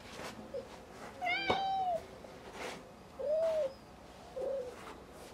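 British Shorthair cat meowing three times: a longer, louder meow about a second in, then two shorter meows around three and four and a half seconds in, each rising and falling in pitch.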